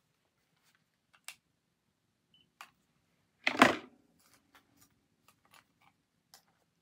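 Handling and movement noise close to the microphone: one short, loud rustle about three and a half seconds in, with scattered light clicks and taps before and after it.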